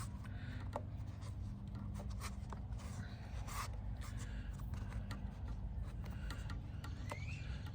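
A new air filter being pushed and worked into the mower engine's air-filter housing: irregular scraping and rubbing with scattered light clicks, over a steady low hum.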